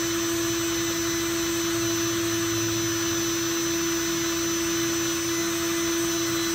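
Black & Decker cordless drill running steadily with a 5/64-inch bit, boring through a sparkling-wine cork pressed down onto the bit. The motor holds one steady tone throughout.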